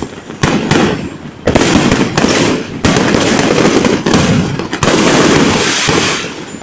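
Fireworks going off: a few sharp bangs, then from about a second and a half in a dense run of booms and crackling that eases off near the end.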